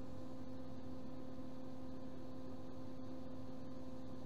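A steady hum: one constant low tone with its overtones over faint background noise, unchanging throughout.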